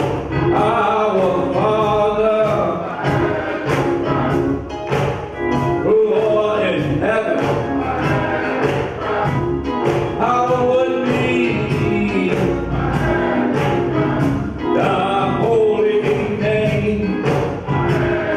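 Male gospel vocal group singing live, one lead voice on a handheld microphone with the others backing, over a drum kit keeping a steady beat.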